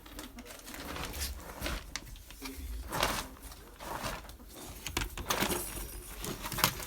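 An animal sneezing, a string of short, sudden bursts, the loudest about three seconds in.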